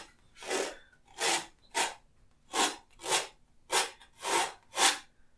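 A man laughing under his breath in about eight short, breathy bursts, roughly half a second apart.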